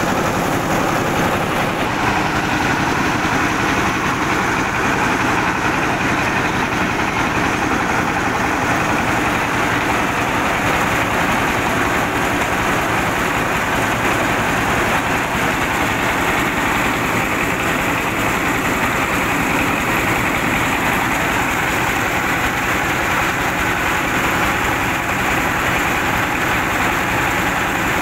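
Diesel-engine-driven rice mill running steadily under load, the engine and the milling machine's huller working together as paddy is fed through.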